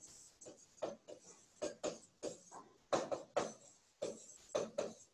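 Pen writing on a board: a quick string of short, uneven strokes as an equation is written out, faint next to the lecture voice.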